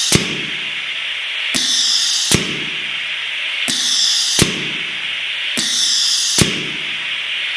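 Prototype compressed-air emergency mechanical ventilator cycling: a steady hiss of air, broken by sharp valve clicks in a regular breath rhythm of about one cycle every two seconds. The hiss is louder and higher between alternate pairs of clicks, marking the change between the two phases of each breath.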